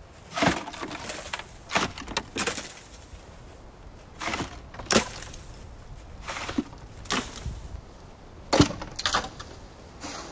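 Snow shovel knocking snow and icicles off a wooden cabin's roof edge: about nine sharp knocks and crunches at irregular intervals as icicles break.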